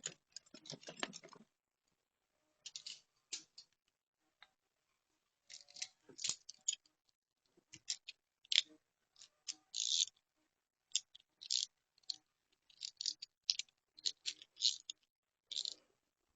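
Hand tools being rummaged through and handled: faint, irregular clicks, clinks and scrapes of metal in short bursts, with a brief ring now and then.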